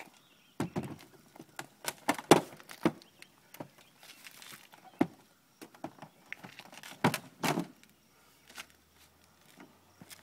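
A series of irregular knocks and thumps, a few of them louder, with quiet stretches between.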